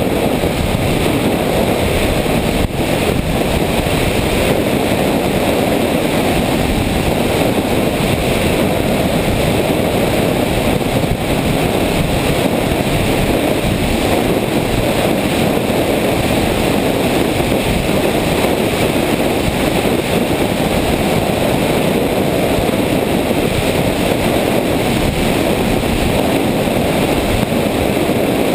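Steady rush of airflow over the microphone of an RC FPV airplane's onboard camera in flight, loud and unbroken.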